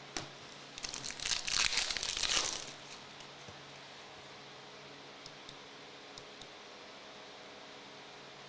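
Foil wrapper of a trading-card pack being torn open and crinkled for about two seconds, starting about a second in, followed by a few faint light clicks.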